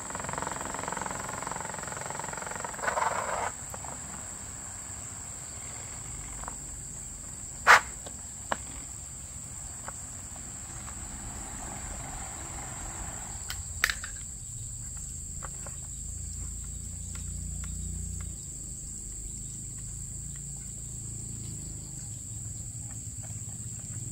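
Crickets trilling steadily on one high note, with a sharp knock about eight seconds in and a second, weaker one about fourteen seconds in.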